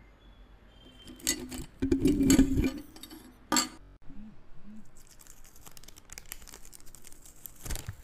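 Close-miked handling of tissue paper and art supplies on a tabletop: light clicks and knocks with a louder bump about two seconds in, then soft paper rustling.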